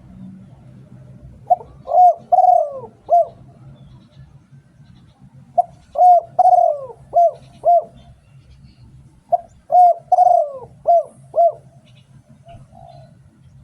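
Spotted dove cooing: three phrases of five or six short coos each, a few seconds apart.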